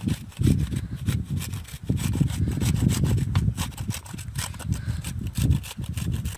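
Repeated rasping scrapes of an unripe green fruit being grated on a flat hand grater with a metal blade, stroke after stroke.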